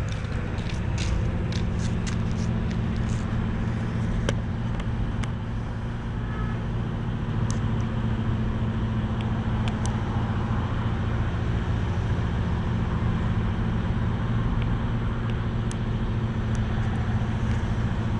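Compressor running with a steady, low, pitched hum, with a few light clicks over it.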